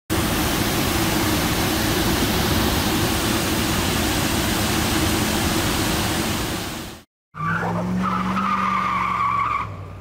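Water rushing over a partly iced-over waterfall: a loud, steady rush that cuts off abruptly about seven seconds in. After a short gap, a different steady sound with a low hum and a higher tone lasts about two seconds, then drops away.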